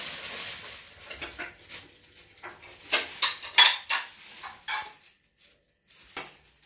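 Kitchen dishes and metal utensils clinking and clattering as they are handled. A run of sharp knocks, several of them ringing briefly, comes thickest in the middle, then stops for about a second near the end.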